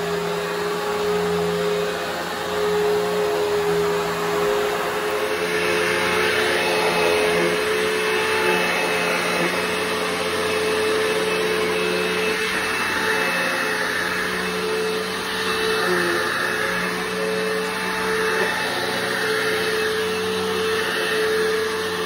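1997 Dirt Devil Swivel Glide upright vacuum cleaner running on a rug, a steady motor whine over a constant rush of air.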